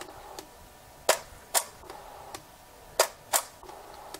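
Canon 7D DSLR shutter released twice, each release a pair of sharp clicks about half a second apart.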